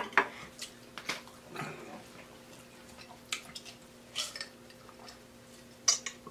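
A handful of short, quiet clicks and clinks as dishes and a glass mug are handled, then gulping while drinking from the glass mug.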